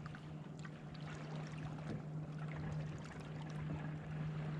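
Water lapping and trickling lightly against a fishing kayak's hull, with a steady low hum and a few faint small ticks underneath.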